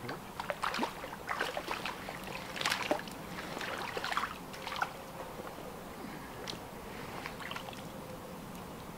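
Water splashing as a small hooked fish thrashes at the surface of a shallow river and is grabbed by hand: a quick run of irregular splashes over the first five seconds, then only a few small splashes and drips.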